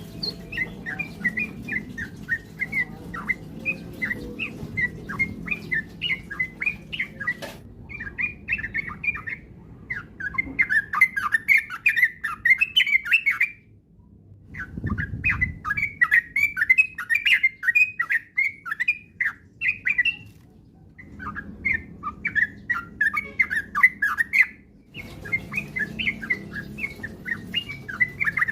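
Yellow-vented bulbul (trucuk) song: fast, bubbly chattering notes in long runs, broken by short pauses of about a second. This is the rapid rolling song that keepers call 'ropel', played as a lure to get other trucuk singing.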